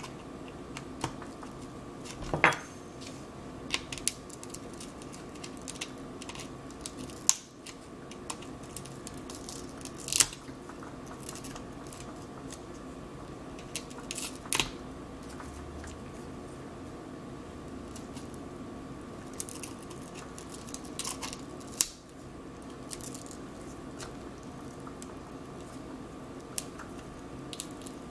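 A thin pry tool scraping and picking along the edge of an iPad's aluminium frame, working off adhesive residue: scattered small scrapes and clicks with a few sharper ticks, over a steady faint hum.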